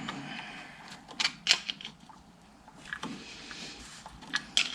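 A few light metal clicks and knocks, spaced irregularly, from hand work on a 110cc pit bike engine's top end: the cam gear being fitted while the flywheel is held at top dead center.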